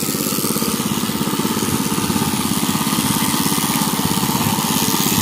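Small portable generator's engine running steadily with an even, rapid beat.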